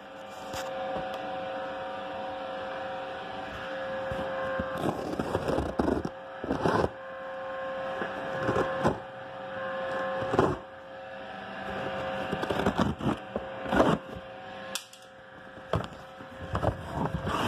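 Cardboard shipping boxes being handled and shifted: irregular rustles, scrapes and knocks, some in quick clusters, over a steady background hum.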